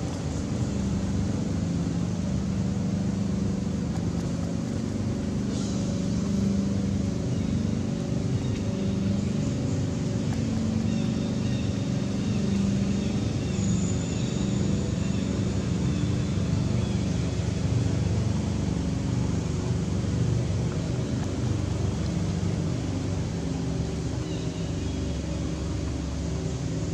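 Steady low rumble of a running motor, with an even hum and no breaks.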